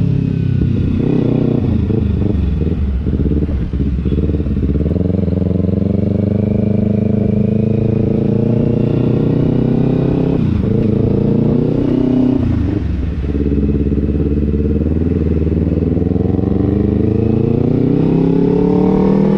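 Kawasaki Ninja 250 FI parallel-twin engine through an Austin Racing aftermarket exhaust, pulling hard while riding. Its pitch climbs, falls off briefly about three, ten and thirteen seconds in as gears are shifted, then climbs again.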